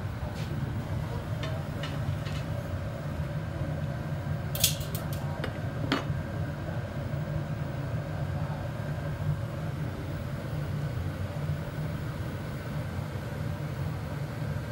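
Steady low roar of a glass studio's gas-fired furnace and glory hole burners. A quick cluster of sharp metal clicks comes a little over four seconds in, and one more click about a second later, from the glassblower's tools working a small blown vase on its pipe.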